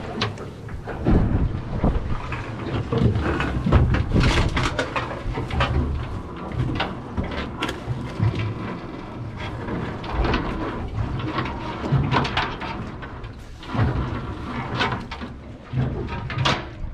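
Gusty wind rumbling on the microphone, with irregular knocks and rattles scattered through it.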